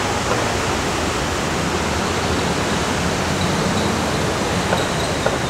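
Steady, even rushing noise with no clear events, and a faint thin high tone coming in about halfway through.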